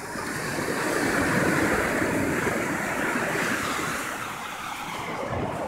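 Ocean surf: a wave washing up the beach, building over about the first second and a half and then slowly subsiding.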